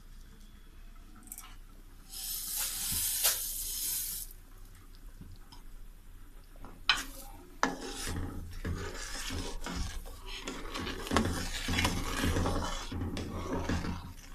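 Sugar poured from a plate into a pan of cooking firni, a hiss lasting about two seconds. Later, a metal spoon stirring the thick rice-and-milk pudding, scraping and knocking against the metal pan.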